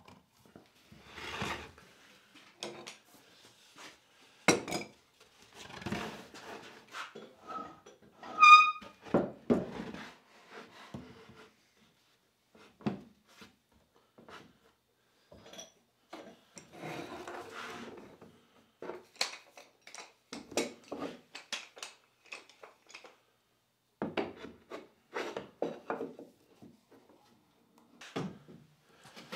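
Wooden boards and wooden clamps being handled, set and knocked on a wooden workbench: irregular knocks and rubs, with one short metallic ring a little over eight seconds in.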